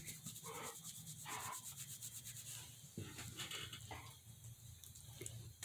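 Faint rubbing and rustling of a dog's fur close to the phone's microphone as a hand pets the dog, with a couple of soft taps about three and four seconds in.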